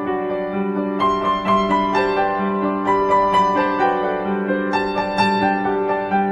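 Background music: a piano melody with sustained notes over a steady low accompaniment.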